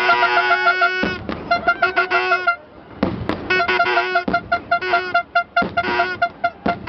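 Fireworks display: sharp bangs every second or so, among loud, fast-pulsing musical tones repeated several times a second.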